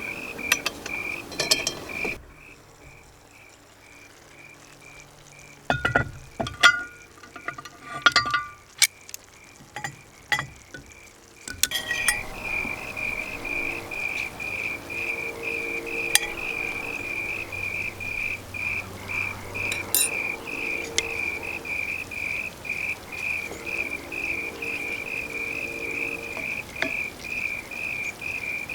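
Crickets chirping in a steady, even pulse. The chirping drops out for several seconds a couple of seconds in, leaving a few sharp clicks and knocks, and returns about twelve seconds in.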